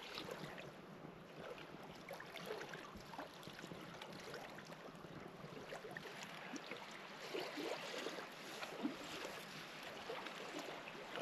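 Faint small waves lapping against the shore, with rain pattering on the tarp overhead and a campfire crackling.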